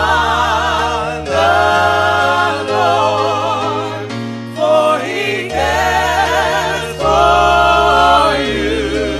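Gospel music: singing voices hold long notes with vibrato over sustained low bass notes, in phrases with short breaks between them.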